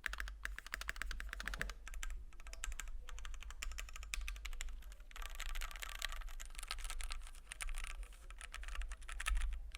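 Continuous typing on a Keychron Q1 mechanical keyboard with a polycarbonate plate, Gateron Phantom Red linear switches and double-shot ABS keycaps: a fast run of soft, thocky keystrokes. The aluminium case still gives a hollow, pingy ring.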